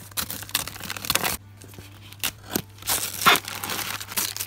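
Taped newspaper wrapping being torn and peeled off a cardboard box, the paper tearing and crinkling in irregular strokes. There is a short lull about a third of the way in, then louder tears.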